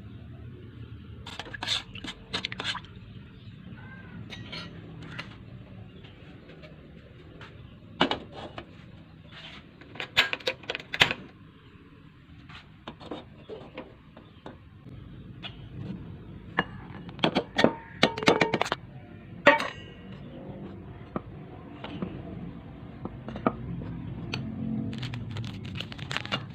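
Kitchen utensils clinking and knocking against dishes, in scattered clusters of sharp taps, over a low steady background hum.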